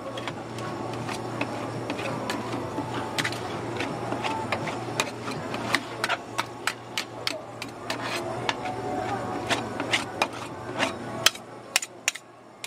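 Metal scraper spreading and smoothing rolled-ice-cream base across a frozen steel pan. It scrapes with frequent sharp clicks as the blade taps the metal, over a steady low hum.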